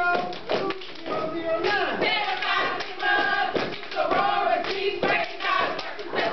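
A group of women's voices singing and chanting together in unison.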